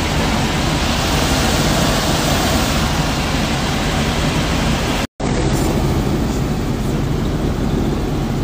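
Robinson R44 helicopter in flight, heard from inside the cabin: a steady rush of engine and rotor noise over a low hum. It cuts out for an instant about five seconds in.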